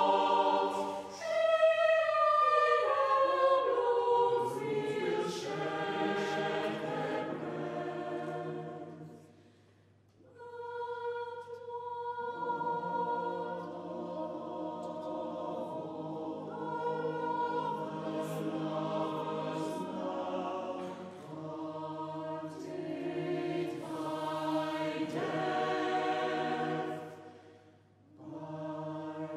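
Mixed-voice chamber choir singing in a reverberant church. Near the start the voices slide downward in pitch; about ten seconds in they break off briefly, resume on one held note that the other voices then join in chords, and break off again briefly near the end.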